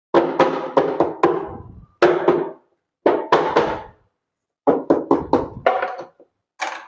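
A dozen or so sharp knocks on parts of a wet grinder being fitted back together, each ringing briefly with a hollow tone, in irregular clusters.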